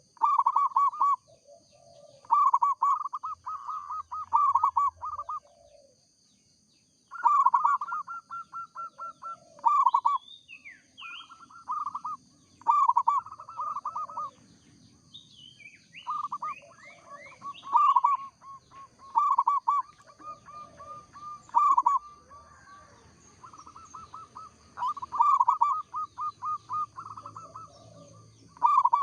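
Zebra dove (perkutut) cooing: phrase after phrase of rapid, evenly spaced coo notes, each phrase lasting a second or two with short pauses between. This is the bird in full song (gacor).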